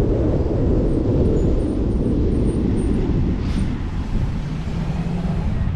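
Wind rushing over the camera microphone on a downhill bicycle ride: a steady low rumble that eases a little over the last two seconds. A brief hiss comes about three and a half seconds in.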